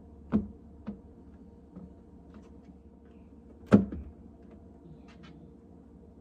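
A few knocks and light clicks from handling a reverse osmosis unit and its hoses in an under-sink cabinet: two knocks in the first second, a louder knock near the middle, then faint clicks, over a steady low hum.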